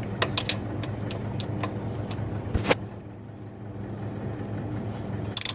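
Ratcheting combination wrench clicking as it is swung back and forth on a nut, several sharp clicks in the first three seconds and one louder click near the end, over a steady low hum.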